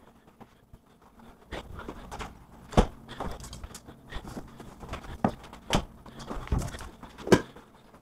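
Irregular footsteps and knocks on a tiled floor, with rustling; two sharper knocks stand out, about a third of the way in and near the end.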